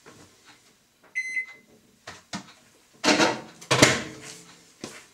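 A single short electronic beep about a second in. Then a couple of knocks and a louder clatter of kitchen handling around three to four seconds in.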